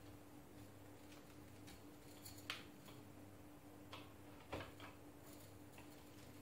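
Faint clicks and light rustling as 2 mm bonsai wire and the branches of a Chinese elm are handled during wiring, with sharper clicks about two and a half seconds in and about four and a half seconds in, over a faint steady hum.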